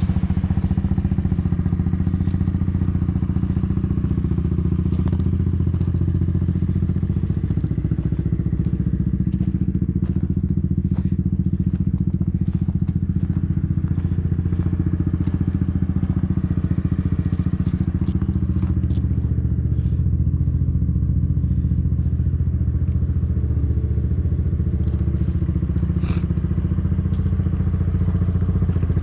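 Engine running steadily at an even speed, with a deep, unchanging drone and faint ticks over it.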